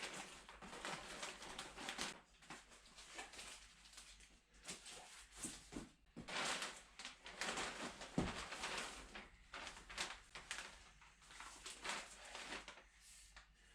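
Packaging rustling and crinkling in irregular bursts as ordered car parts are unpacked and handled.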